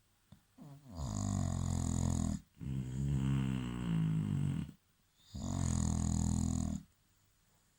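English bulldog snoring in its sleep: three loud, low, rattling snoring breaths, the first two back to back, then a pause before the third.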